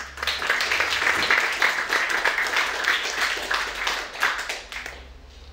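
Audience applauding, starting suddenly and dying away over the last second or so.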